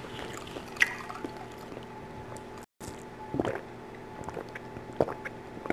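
Sipping and swallowing apple cider, with a few small wet gulps and clicks over a faint steady hum. The sound cuts out completely for a moment about halfway through.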